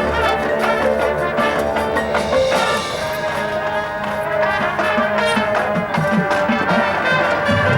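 Marching band playing: brass sustaining chords over steady percussion strokes.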